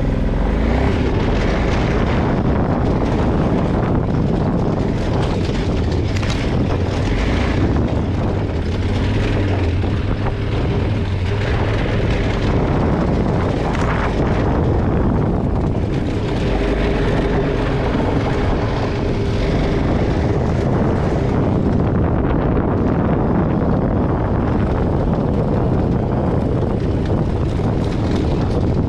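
Off-road motorcycle engine running steadily while riding a rough dirt trail, with wind rushing over the microphone.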